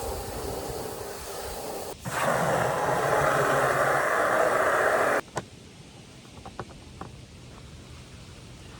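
Running water rinsing out a chicken waterer. The flow grows louder about two seconds in and is shut off suddenly a few seconds later, leaving a few light clicks.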